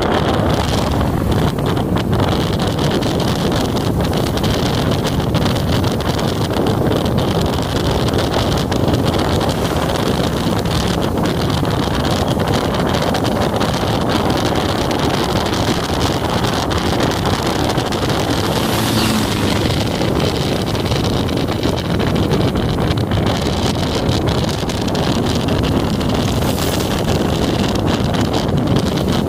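Wind buffeting the microphone on a moving motorcycle, over the steady running noise of the bike and its tyres on the wet road.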